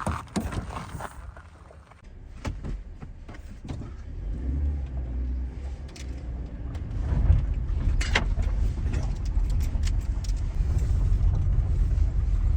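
Clicks and knocks, then a car running with a low rumble that builds up and holds steady from about halfway through, with one sharp knock a little after that.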